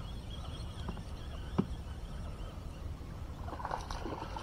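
A hooked fish splashing at the water's surface about three and a half seconds in, over steady low background noise. A single sharp click about a second and a half in.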